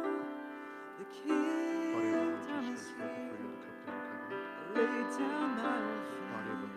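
Live worship band playing a song, with acoustic guitar and piano under a singing voice.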